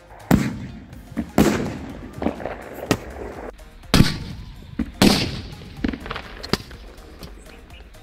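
Sutli bombs (twine-wrapped firecrackers) exploding under an iron tub: four big, sharp bangs, each trailing off, with smaller cracks between them.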